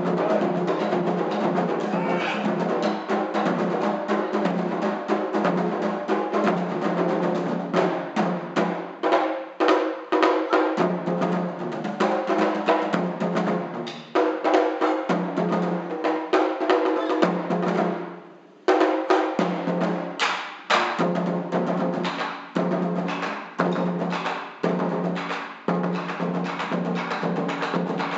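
Japanese taiko drums played in rapid, driving rhythmic strikes with a deep ringing tone. The drumming breaks off briefly about two-thirds through, then starts again.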